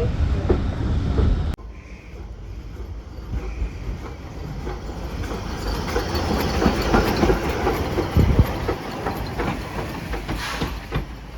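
A train running on rails, with wheels clicking and knocking over the rail joints. About a second and a half in, a louder low rumble cuts off abruptly into a quieter stretch of rolling noise.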